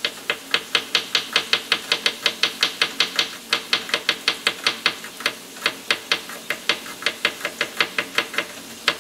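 Knife blade tapping a wooden cutting board in quick, even strokes, about five a second with a couple of short pauses, as a garlic clove is sliced paper-thin.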